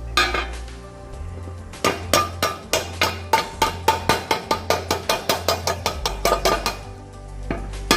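Hammer blows on a steel sheet-metal patch laid on a metal trailer, a rapid run of ringing strikes about four a second from about two seconds in, stopping briefly near the end. Background music with a bass line plays underneath.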